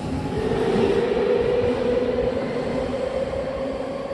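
Subway train moving alongside the platform, its electric traction motors giving a steady whine that rises slightly in pitch over the first couple of seconds, over rumbling rail noise.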